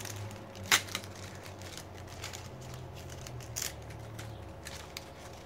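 Small plastic bags of diamond-painting drills being handled on a table: light crinkling and scattered small clicks, with one sharper click about a second in, over a low steady hum.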